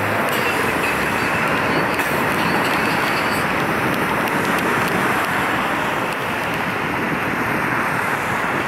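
Union Pacific double-stack intermodal train's loaded well cars rolling along the main line: a steady rush of wheel-on-rail noise.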